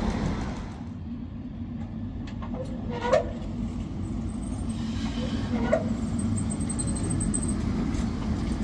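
Tatra K3R-NT articulated tram approaching and running past on street track, a steady low rumble and hum that grows as it nears. Two short, sharp knocks about two and a half seconds apart are heard, and a faint thin high whine comes in near the end.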